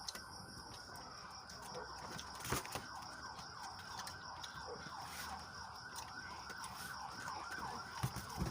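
A dog whining: a run of short, falling, high-pitched whimpers, several a second, building from a few seconds in, with a single sharp click earlier.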